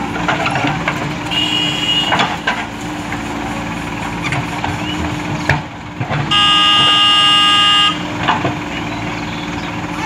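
JCB 3DX backhoe loader's diesel engine running steadily as it digs and dumps soil, with a few knocks. A vehicle horn sounds briefly about a second in, then again, louder and for about a second and a half, from about six seconds in.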